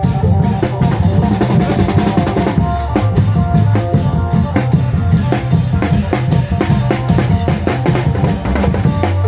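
Isan klong yao long drums playing a fast, dense dance rhythm, with a sustained melody line over the drums.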